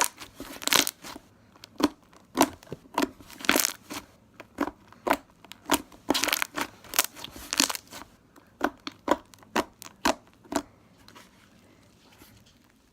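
Sticky slime being pressed and pulled apart: an irregular run of short, sharp sticky pops and crackles that stops about two seconds before the end.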